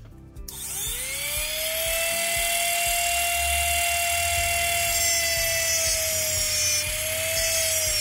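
Handheld rotary tool fitted with a cut-off wheel spinning up about half a second in, its whine rising in pitch, then running at a steady speed with a high, even whine.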